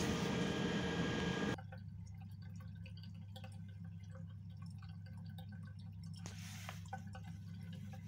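Steady machinery noise cuts off suddenly about a second and a half in, then a basin mixer tap runs a thin, weak stream that drips and splashes into the washbasin over a low steady hum. The feeble flow comes from air still trapped in the hot water system.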